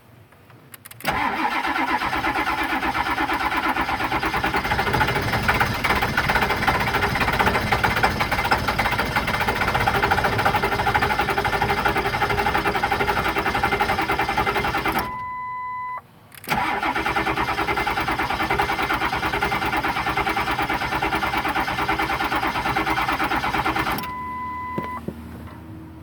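1999 Ford 7.3 Power Stroke V8 diesel being cranked on the starter without firing, its starting trouble coming from six months of sitting. It cranks for about fourteen seconds, stops while a short beep sounds, then cranks again for about seven seconds, followed by another beep.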